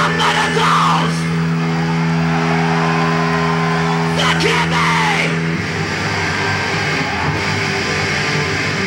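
Live rock band on a big PA: a held, droning electric guitar chord rings on while the singer shouts into the microphone, once at the start and again about four seconds in. The held chord stops about five and a half seconds in, giving way to a rougher wash of band noise.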